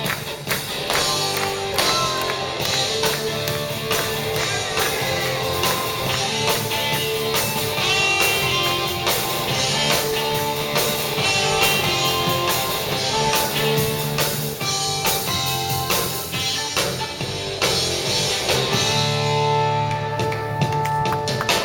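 Rock band playing a hard-rock song: guitars over a drum kit keeping a steady beat.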